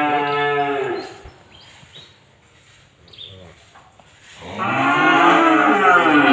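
Five-month-old cream-coloured calves mooing: one long moo ends about a second in, and another starts about four and a half seconds in.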